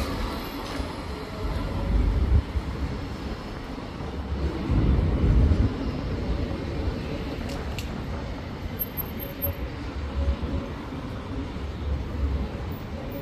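Bombardier Flexity 2 street tram running along its track and pulling away, a continuous low rumble with swells of louder noise, amid street traffic.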